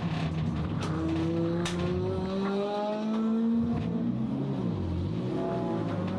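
Toyota Starlet Glanza's four-cylinder engine under hard acceleration, heard from inside the cabin. The engine note rises steadily, drops about four seconds in at a gearshift, then climbs again.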